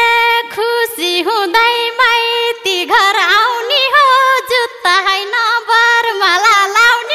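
Nepali dohori folk music in an instrumental break: an ornamented melody line with slides and quick turns over a steady held note, without the drum beat.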